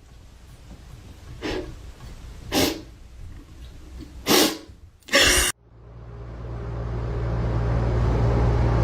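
A cat sneezing four times, each sneeze louder than the last. After the fourth, a steady low hum fades in and grows louder.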